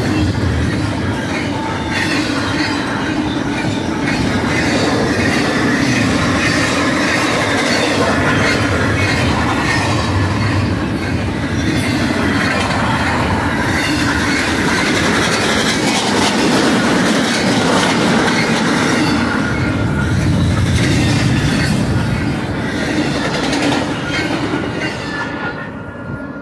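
Double-stack intermodal well cars of a freight train rolling past at speed: a steady rumble of steel wheels on rail, with the clatter of wheels over rail joints and some wheel squeal. It fades near the end as the last cars pass and move away.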